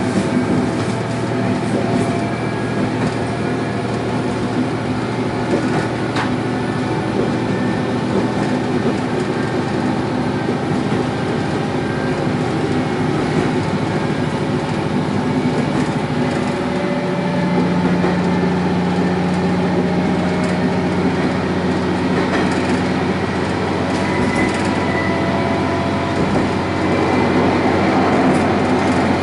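Sanriku Railway diesel railcar running along the line, heard from inside: a steady engine drone under rail noise, with occasional faint wheel clicks. The engine note changes about halfway through.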